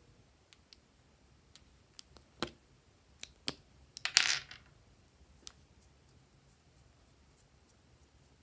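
Sharp plastic clicks and taps as the owl-shaped caps are pulled off two plastic stick tubes and the tubes are handled, with a short, louder clatter about four seconds in.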